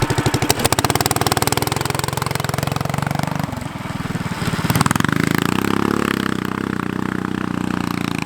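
Homemade off-road kart's small petrol engine running at high revs. It eases off about three and a half seconds in, then revs back up a second later and holds steady.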